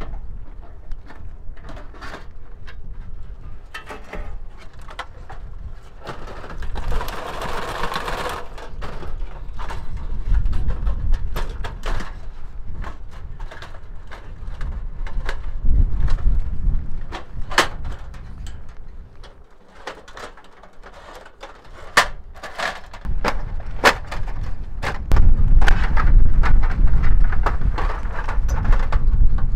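Lightweight sheet-metal tent stove being taken apart by hand: the lid and parts clink, knock and scrape in many sharp metallic clicks. Low gusts of wind rumble on the microphone in places, strongest near the end.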